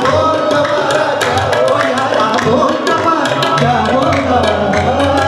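Kashmiri song music: a quick, steady hand-drum beat under a wavering melody line.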